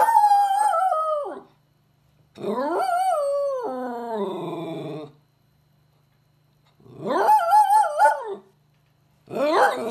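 Small black dog howling four times, long drawn-out howls whose pitch wavers and bends, the second the longest, with short pauses between them.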